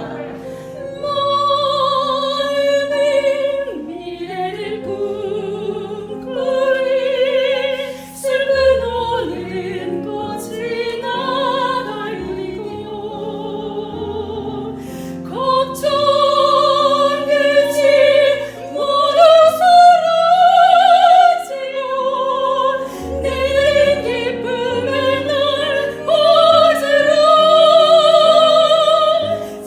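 A soprano sings an operatic aria with wide vibrato, phrase after phrase with short breaks, over steady held accompaniment notes.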